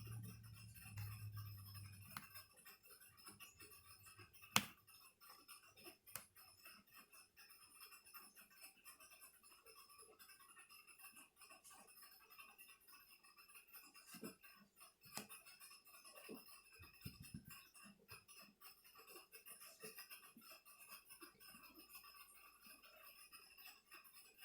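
Near silence with faint, scattered clicks and taps of small laptop parts and screws being handled during reassembly, with one sharper click about four and a half seconds in.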